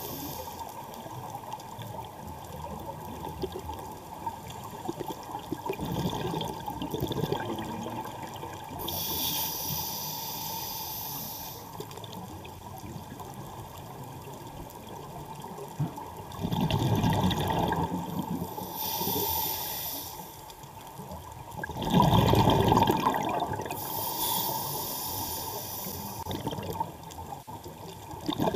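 Scuba diver breathing through a regulator underwater: a hiss on each inhale and a rush of exhaled bubbles, slow breaths several seconds apart. The bubble rushes are the loudest part.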